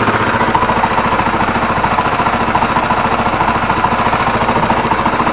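Yamaha TW200's air-cooled single-cylinder four-stroke engine running steadily just after starting, with a fast, even chattering tick and a dull knock underneath. The owner puts the dull knock down to worn crankshaft main bearings.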